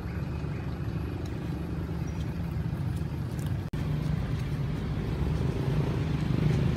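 Steady low rumbling background noise, with a brief dropout about three and a half seconds in.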